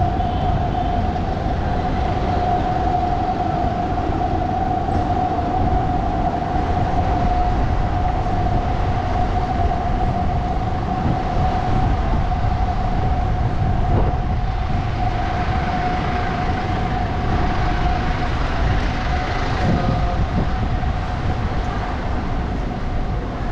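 City street ambience: a steady machine whine holds one pitch throughout, over a low rumble of traffic, fading slightly near the end.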